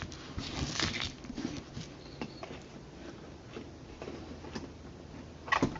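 Light scattered clicks and taps of screwdriver sets and their cases being handled and swapped, with a louder short clatter near the end.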